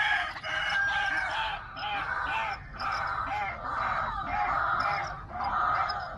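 Chickens clucking and crowing, their calls overlapping almost without a break.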